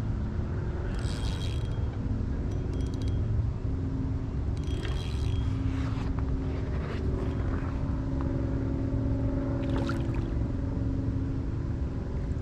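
A fishing reel cranked in short spells with a high whir while a small catfish is reeled in to the kayak, over a steady low rumble.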